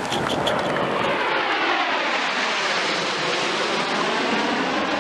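Military jet flying past, a loud steady engine noise whose sweeping whoosh dips about halfway through and rises again as it passes.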